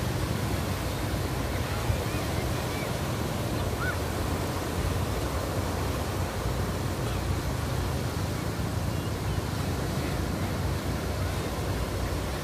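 A steady rushing noise with a deep low rumble, even and unbroken throughout.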